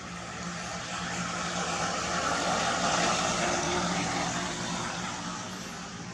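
Engine noise of a passing vehicle: a steady low hum and rushing noise that swells to a peak about three seconds in, then fades away again.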